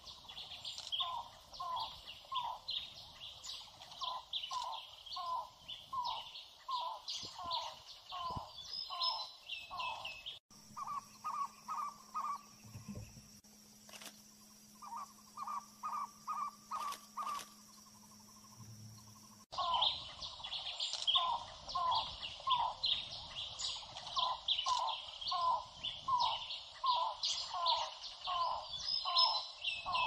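Cuban trogon (tocororo) calling: a long series of short repeated notes, about one and a half a second, with higher chirps above them. For about nine seconds in the middle the notes come in quicker runs of four to six over a steady hum.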